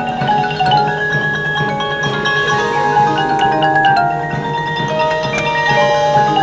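Marching band playing, with the front ensemble's marimba and glockenspiel prominent over held notes.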